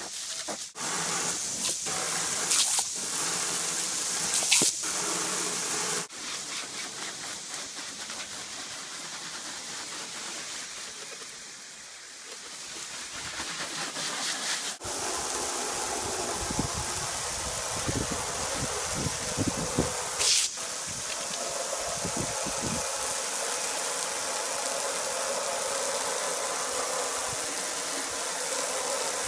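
Garden hose spray hissing and splattering, at first into a plastic water bowl on gravel, then against a car's painted body panels. Low rumbling bumps come in about halfway through.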